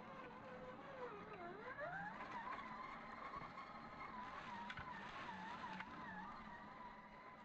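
Electric motor and drivetrain of an RC crawler (Redcat Everest-10 chassis) whining faintly under throttle. The pitch dips about one and a half seconds in, then climbs and wavers up and down as the throttle changes. There are a couple of faint clicks near the middle.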